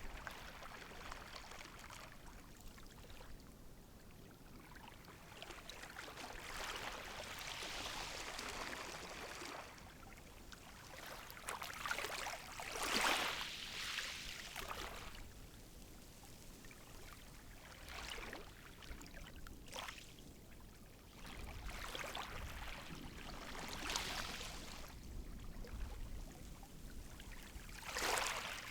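Gentle sea waves breaking and washing on the shore, each wave swelling into a splashing hiss and falling back, with a continuous wash between them. The biggest wave breaks about halfway through, with smaller ones every few seconds.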